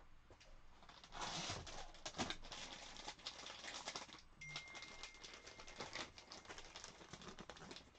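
Plastic packages of soft swimbaits being rummaged through and handled, a quiet run of crinkling and small clicks.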